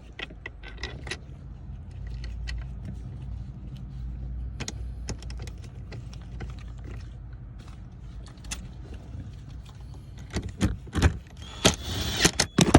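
Hand tool and metal fasteners clicking and rattling as a Torx bolt is refitted on a car's shifter bracket, with a denser burst of clattering near the end, over a steady low hum.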